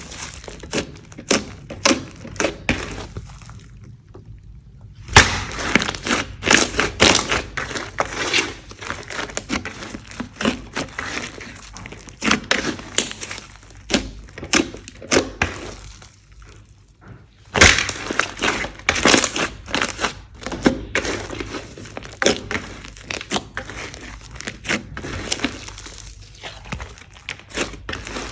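Slime being squeezed, stretched and pressed by hand, giving a dense run of sticky pops, clicks and crackles, with two brief pauses.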